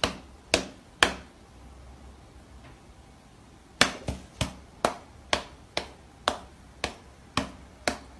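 Sharp slaps of a cat's paw and a person's hand meeting as the standing cat swats at the hand: three about half a second apart, a pause of nearly three seconds, then a steady run of about two a second.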